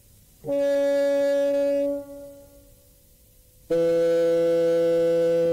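Two held organ-pipe notes from steam-organ pipes blown gently in place of a locomotive whistle: a shorter higher note about half a second in, then a longer, lower note near the end.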